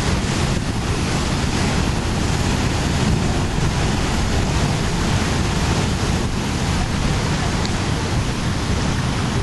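Sea surf breaking against shore rocks in a steady roar, with wind buffeting the microphone.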